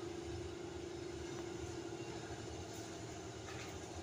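Low, steady rumble of road traffic with a steady hum that fades about halfway through.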